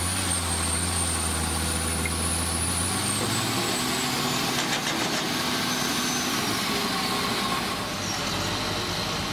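Caterpillar excavator diesel engine running steadily, with a high whine that slowly falls in pitch. The low engine drone shifts about three seconds in.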